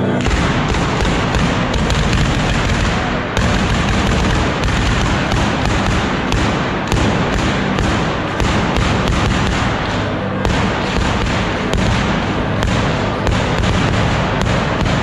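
A fireworks-laden ceremonial cart going off: a dense, unbroken barrage of firecracker bangs and booms, many a second.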